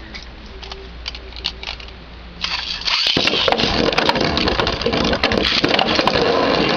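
A few light plastic clicks, then about two seconds in a dense clatter starts suddenly and keeps going: Metal Fusion Beyblade tops, Galaxy Pegasis and Meteo L-Drago, spinning in a plastic battle stadium and striking each other and the walls.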